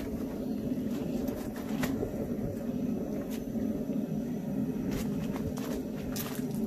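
Two-burner propane forge running with a steady low roar, a few light clicks and taps over it.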